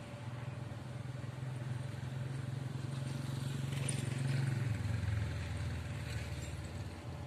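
Steady low diesel engine hum from the stationary passenger train, swelling louder around the middle and dropping in pitch about five seconds in.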